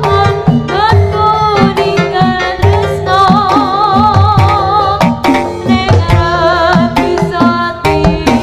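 Javanese jaranan sentherewe ensemble music, with hand drums playing a busy rhythm of frequent strokes. Over them runs a high, wavering melody with vibrato.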